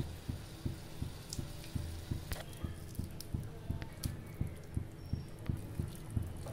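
Small wet plops and clicks as crumbled boiled potato drops into simmering tomato gravy in a pan. Underneath is a steady low thumping about three times a second, with a low hum.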